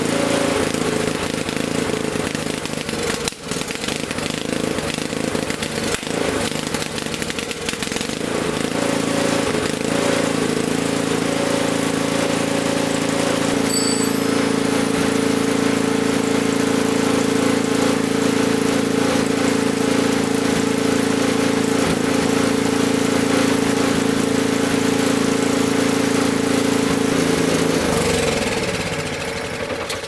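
Honda HS520 snowblower's single-cylinder four-stroke engine running steadily, back in running order after its gummed-up carburetor was cleaned with solvent. The note shifts slightly about halfway through, and near the end the engine is shut off and winds down, its pitch falling.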